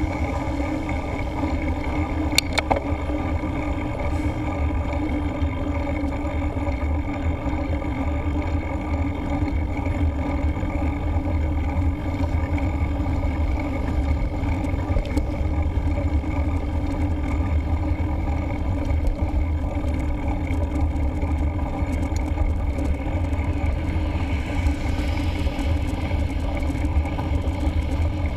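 Steady low rumble of a mountain bike rolling along a tarmac road, picked up by a camera mounted on the bike, with a brief rattle about two and a half seconds in. A hiss swells for a few seconds near the end.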